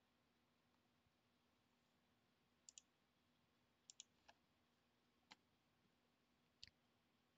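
A few faint computer mouse clicks, some in quick pairs, over near-silent room tone.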